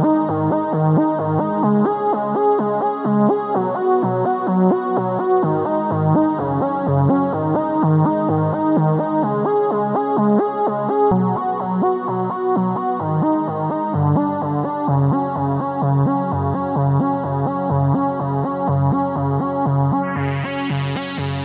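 Kurzweil K2700 workstation playing a sawtooth synth lead patch, with both hands on the keys sounding sustained notes that change in a steady rhythm. Near the end a bright hiss opens up over the notes as a front-panel control is turned.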